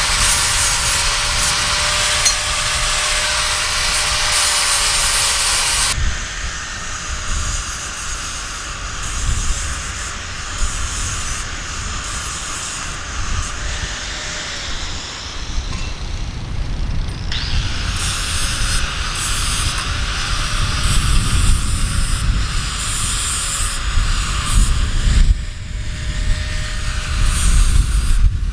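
Handheld angle grinder dressing cut steel bar: a long steady burst of grinding hiss with a thin motor whine, lighter broken passes, then a second long burst from about halfway to near the end. A low rumble runs underneath.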